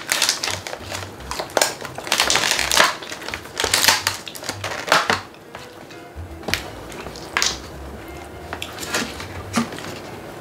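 Plastic food packaging crinkling and crackling as it is handled and opened, loudest in the first five seconds, then quieter with scattered clicks of the plastic tray.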